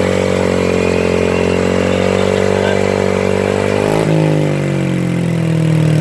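Motorcycle engine with an aftermarket exhaust, held at a steady high rev for an exhaust sound test, then dropping to a lower engine speed about four seconds in.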